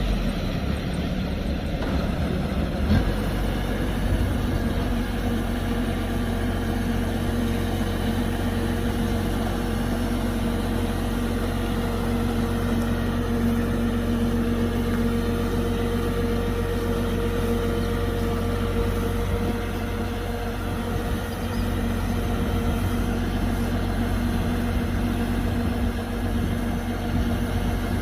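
Kubota DC-105X combine harvester running steadily: a continuous diesel engine drone with a low rumble and a steady hum that settles in about three seconds in.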